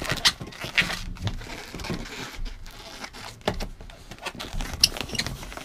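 Inflated latex twisting balloons (260s) rubbing against each other and the fingers as their ends are tied together, with irregular short scrapes and clicks.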